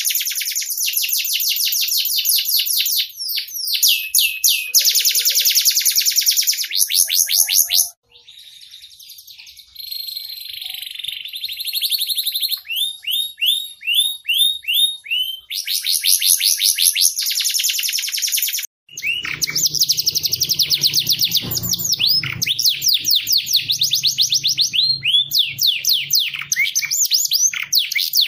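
Domestic canaries singing in long, rapid trills of quickly repeated high notes. The song is cut off abruptly twice, about eight seconds in and again near nineteen seconds, where one recording gives way to another. A faint low hum runs under the song for a few seconds after the second cut.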